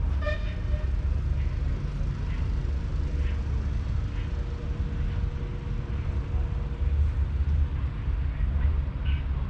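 Outdoor rumble, mostly wind buffeting the microphone, with a faint steady engine hum in the background from about two and a half seconds in.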